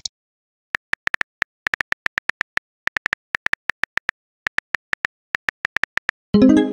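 Phone-keyboard typing sound effect: short electronic clicks, about five a second in uneven runs, one per letter as a text message is typed out. Near the end a short chime of several plucked-sounding notes cuts in.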